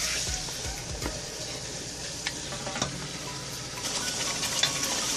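Chicken pieces in yogurt masala sizzling in oil in a nonstick pot, stirred at first with a wooden spatula, with a few light clicks of the spatula. The sizzle grows louder about four seconds in.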